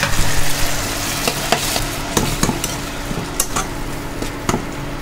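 Onion-and-tomato masala sizzling in hot oil in a pan while a metal spoon stirs and scrapes it, with scattered clicks of the spoon against the pan.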